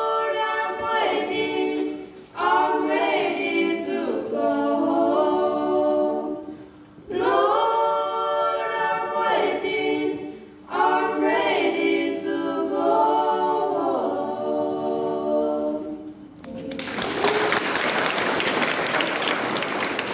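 A trio of girls singing a cappella into microphones, in phrases with short breaths between. About sixteen seconds in the song ends and the audience breaks into applause.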